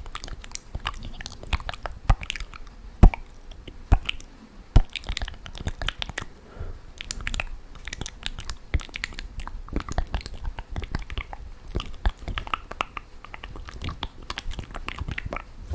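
ASMR mouth sounds: a continuous irregular run of wet clicks and smacks, like chewing, with a few louder sharp clicks between about two and five seconds in.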